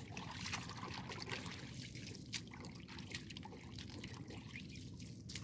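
Shallow pond water trickling and splashing lightly as hands work inside a fine-mesh fishing net gathered in the water, with many small scattered drips and splashes.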